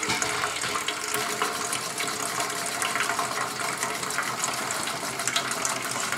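Cooling water running and splashing through an antique Essex hot air (Stirling) engine's water circuit. Faint irregular ticking comes from the engine turning over.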